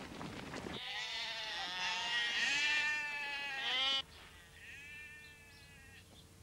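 A flock of sheep bleating, many voices overlapping, for about three seconds, then cutting off suddenly; a few fainter bleats follow.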